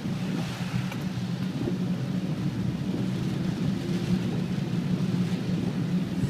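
Storm-force wind buffeting the microphone, a steady low rumble with gusty fluctuations.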